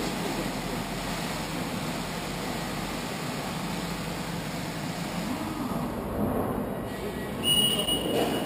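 Steady fizzing rush from an acid descaling bath as the cleaner reacts with limescale on ship cooler plates, with a brief high tone near the end.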